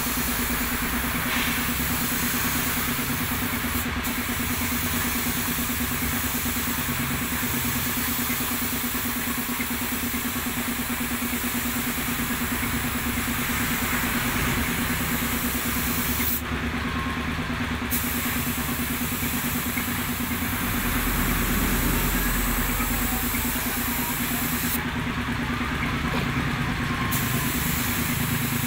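Compressed-air paint spray gun hissing as it sprays paint, over the steady hum of its air compressor running. The high part of the hiss stops twice for a second or two.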